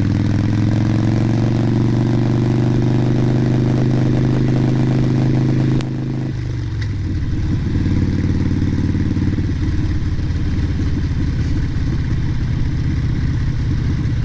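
Harley-Davidson Sportster Nightster V-twin engine running at a steady speed, picked up by a helmet-mounted microphone. About six seconds in the engine note changes and the sound gets quieter and rougher.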